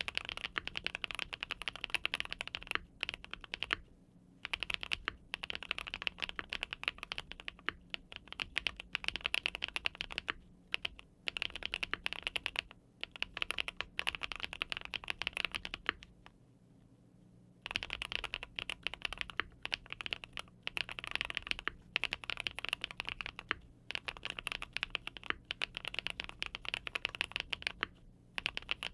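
Typing on a Monsgeek M1 mechanical keyboard with linear switches: fast runs of keystrokes with short pauses between them, and one stop of about two seconds past the middle.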